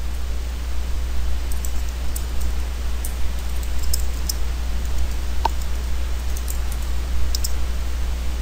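Computer keyboard keys clicking faintly and irregularly as text is typed, over a steady low hum and hiss.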